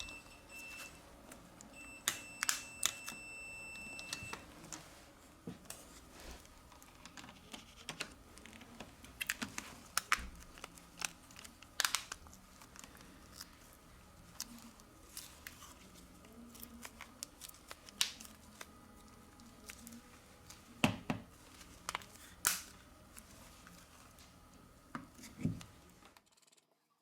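Scattered light clicks and taps of small tools and plastic and metal phone parts being handled and fitted during a smartphone's reassembly, with a brief high tone about two seconds in. The sound cuts off to silence just before the end.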